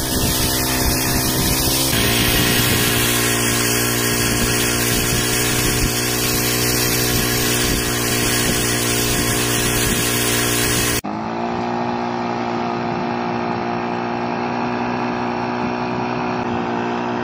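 Small engine of a power knapsack sprayer running fast and steady at raised throttle, pumping diesel out through the lance as a burning jet. About eleven seconds in the sound changes abruptly to a duller tone of the same engine.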